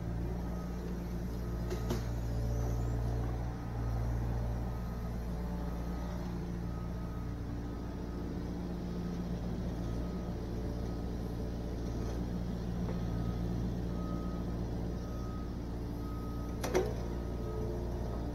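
Yanmar SV40 mini excavator's diesel engine running steadily under work, with a sharp knock about two seconds in and a louder one near the end.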